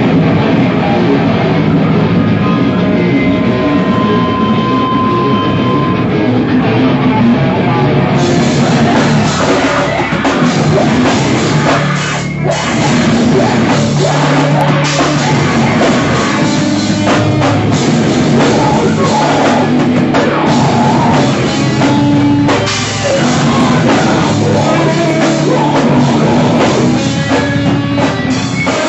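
Live rock band playing loud, with electric guitars and a drum kit; the sound fills out in the highs about eight seconds in, with two short breaks later on.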